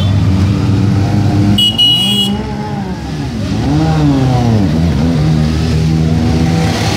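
A column of motorcycles riding past one after another, their engines revving up and down as each goes by. A short high-pitched beep sounds about two seconds in.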